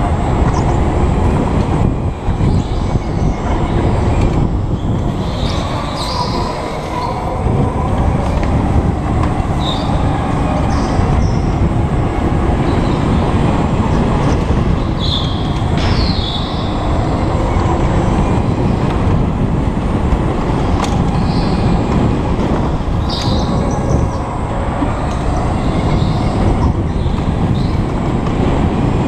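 Go-kart running at racing speed, its motor and rushing air heard from the driver's helmet, with several brief high tyre squeals as the kart slides through corners on a slippery concrete track.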